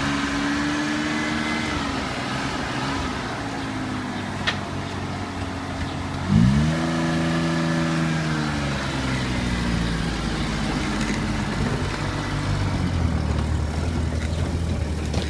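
Truck engine running on the move, its pitch falling early on, then climbing sharply about six seconds in as it accelerates and slowly falling away again.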